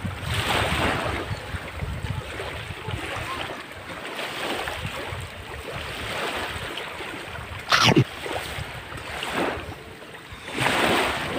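Small waves lapping at the shore in slow surges that swell and fade every few seconds, with a single sharp knock about eight seconds in.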